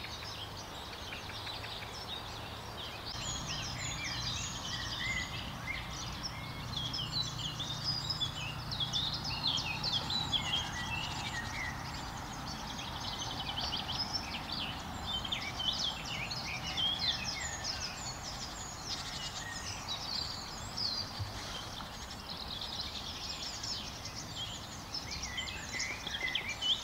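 A chorus of several songbirds singing at once, with many overlapping short chirps and trills, over a steady low background rush.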